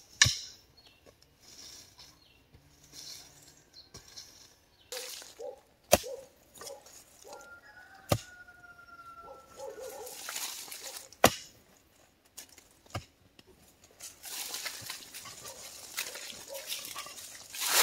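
About five sharp knocks, spaced a few seconds apart, with rustling and scraping noise between them.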